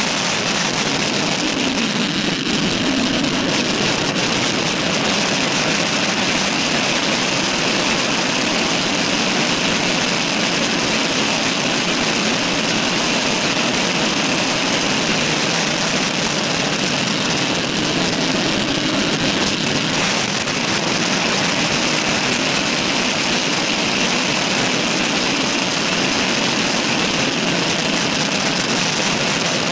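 Steady rush of wind over the microphone of a handlebar-mounted camera on a road bicycle riding at speed.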